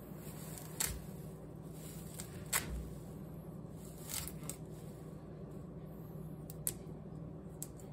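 Fresh parsley being stripped off its stems by hand: soft leafy rustling with about six sharp snaps of breaking stems, over a steady low hum.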